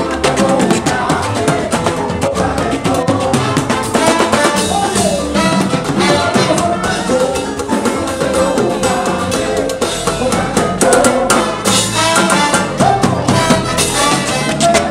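Live Cuban timba band playing a full dance groove, with drum kit, congas, a güiro scraped in rhythm, trumpet and saxophone, and bass guitar.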